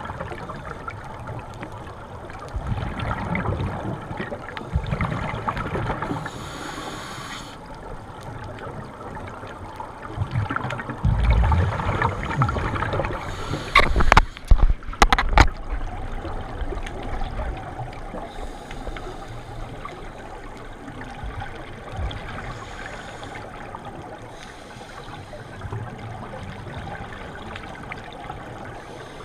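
Muffled underwater sound through a camera housing: scuba divers' regulator breathing and gurgling exhaled bubbles, swelling every few seconds. A few sharp knocks come about halfway through.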